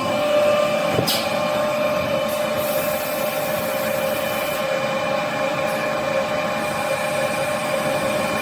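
Kitchen-towel roll saw-cutting machine running steadily: a continuous mechanical drone with a steady whine, and one sharp click about a second in.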